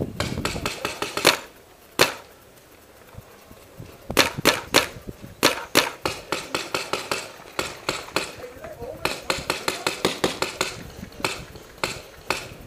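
Paintball markers firing in rapid strings of sharp pops, several shots a second, with a lull of about two seconds near the start before the firing picks up again.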